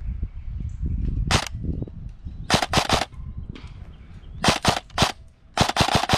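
Airsoft rifle firing sharp, snappy shots in short quick strings: one shot, then groups of three, three and four, each shot a fraction of a second apart.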